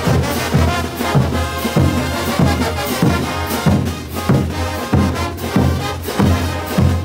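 Large Bolivian marching brass band playing: trumpets and trombones over sousaphones holding the bass line, with bass drums struck on a steady beat, a little under two beats a second.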